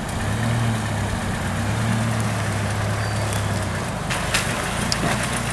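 Jeep Wrangler engine running steadily at low revs as it crawls through a rocky stream crossing. Its hum drops away about four seconds in, and a few sharp clicks follow near the end.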